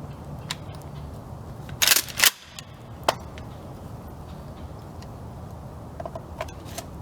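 Maverick 88 bullpup 12-gauge pump shotgun: two loud, sharp cracks about half a second apart a couple of seconds in, then a single lighter click about a second later.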